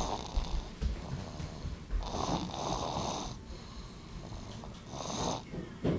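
A baby snoring in his sleep: loud, raspy snoring breaths, a long one about two seconds in and shorter ones near the end.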